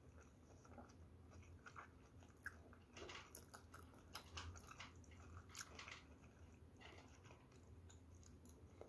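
Faint chewing of a mouthful of fried rice, with scattered small clicks and crunches of eating.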